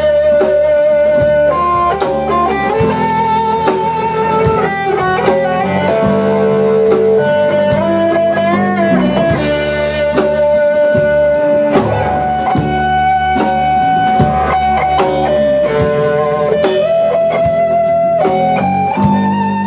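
A live band plays an instrumental passage. An electric guitar carries the lead line in held notes that are bent and shaken with vibrato, over electric bass and a drum kit keeping a steady beat.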